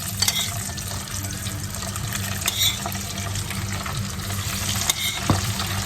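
Sauce-coated chicken pieces going through their second fry in hot oil: a steady sizzle with scattered crackles, and a couple of sharp utensil clicks near the end.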